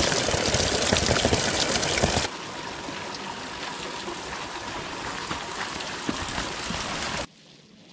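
A thin stream of spring water falling off a rock face and splashing into a plastic water can as it is filled. About two seconds in, the sound cuts to a quieter steady hiss, which drops away again near the end.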